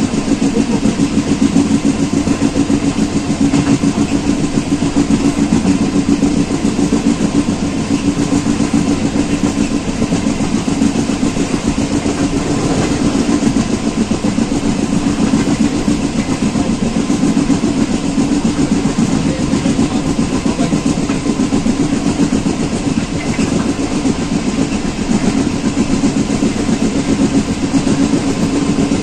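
Passenger train running at speed, heard from on board: the steady, loud running noise of the coach's wheels on the rails.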